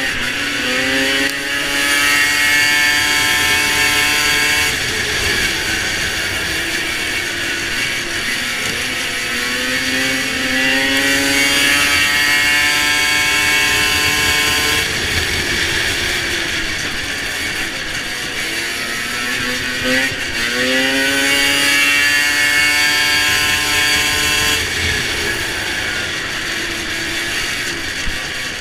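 Racing snowmobile's two-stroke engine, heard from the rider's seat, revving up hard three times as the pitch climbs on each straight. Each climb breaks off sharply as the throttle is lifted for a turn, then the engine runs lower and unevenly before pulling again.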